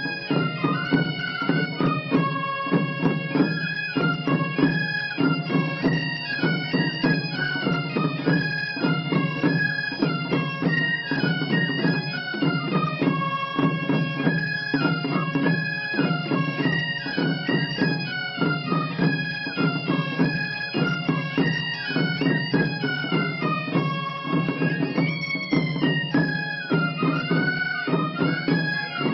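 Mallorcan xeremies band: xeremia bagpipes play a lively folk tune over their steady drone, with flabiol pipes and small drums beating time.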